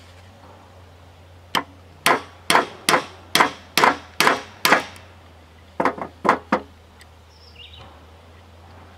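Small sledgehammer striking a steel bent wrench set on an air conditioner fan motor shaft to drive off a bearing that is on very tight. There is a run of eight sharp metal blows, about two a second, then a short pause and a few more.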